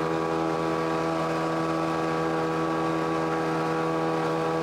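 Electric grinding mill running steadily while milling dried camellia seeds into powder. It makes a constant machine drone with several fixed pitches that do not change.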